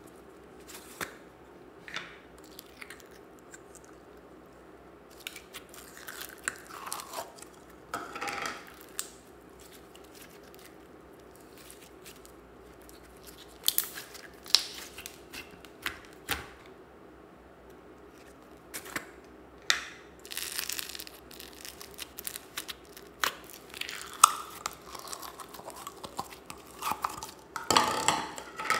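Slime being squeezed out of a plastic tub and kneaded by hand: irregular sticky clicks, pops and crackles, coming in clusters, loudest near the end.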